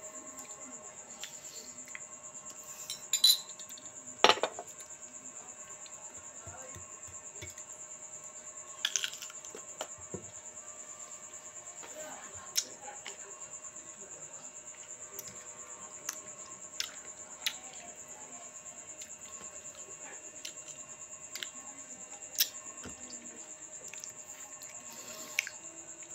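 Scattered sharp clinks of a small china coffee cup, saucer and spoon against the plate, seven or so, the loudest about four seconds in, over a continuous high-pitched cricket chirring.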